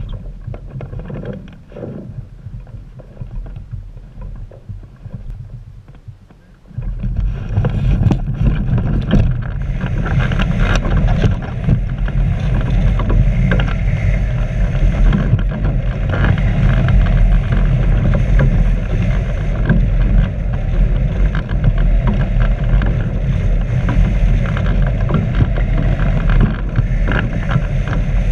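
Wind buffeting the microphone of a camera mounted on a hang glider's wing: moderate gusting at first, then at about seven seconds a sudden jump to loud, steady rushing airflow as the glider launches and flies.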